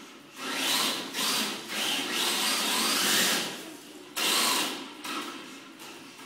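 Tamiya TB02D electric RC drift car: its motor whines in throttle bursts while its tyres scrub and slide on a smooth tiled floor. There is one long burst lasting about three seconds, then a shorter one about four seconds in.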